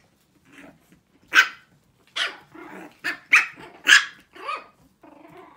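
Six-week-old Shih Tzu puppies barking: about six short, high-pitched yaps, irregularly spaced.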